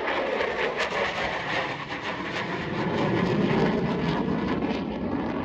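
F-16 fighter jet passing at full afterburner: loud, steady jet noise with crackle in the first second or so, the sound sinking lower in pitch as it goes by.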